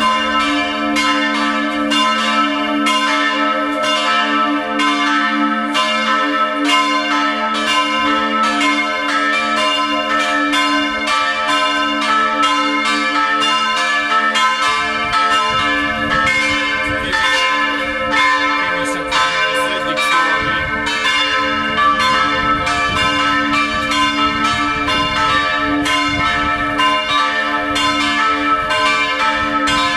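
Full peal of three swinging church bells tuned a', c'' and d'': two cast by St. Florian in 1956 and one by Böhler in 1923. Their strokes overlap continuously and unevenly over a steady low hum. A low rumble of street traffic builds underneath in the second half.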